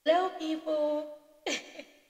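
A woman's voice vocalizing a short wordless tune: a couple of held notes, then a brief falling note.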